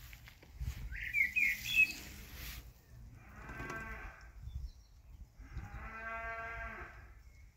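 Rustling with a few short high rising chirps in the first two seconds, then two long, drawn-out animal calls with a fairly low pitch, each about a second and a half long, spaced about two seconds apart.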